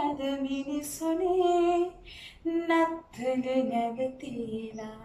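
A woman singing solo and unaccompanied in Sinhala, holding long notes with short breaks between phrases.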